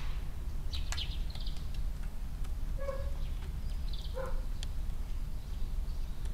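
Eurasian tree sparrows calling in a few short chirps, with two lower calls about three and four seconds in. Sparse light clicks and a steady low rumble run underneath.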